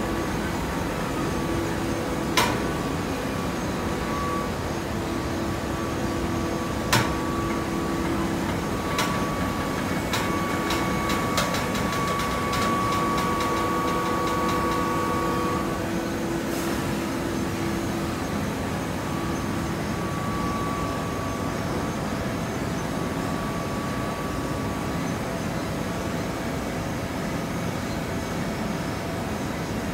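Hydraulic baler running: a steady mechanical drone with a held hum, broken by a few sharp metallic knocks and a quick run of clicks about a third of the way in.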